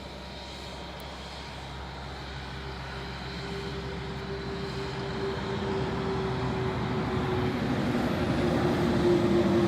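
An engine running steadily with a held hum, growing gradually louder over several seconds.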